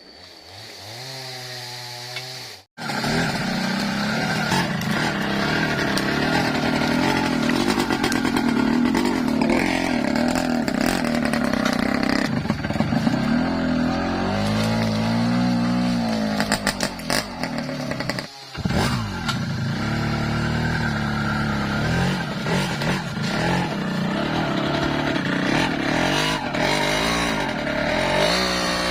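Yamaha two-stroke motorcycle engine running under a heavy timber load, its revs rising and falling over and over. The sound cuts out briefly twice, near the start and about two-thirds of the way through.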